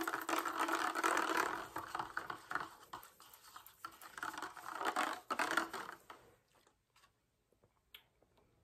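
A plastic straw stirring eggnog in a plastic cup, scraping and clicking against the cup. The stirring comes in two spells, the second ending about six seconds in.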